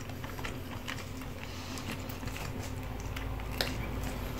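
Steamed lobster's shell being pulled apart by hand: scattered small cracks and clicks, over a faint steady low hum.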